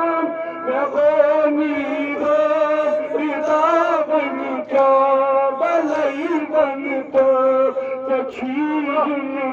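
A man chanting a noha, a Shia Muharram lament, amplified through a handheld microphone, in long held notes that bend and waver between phrases.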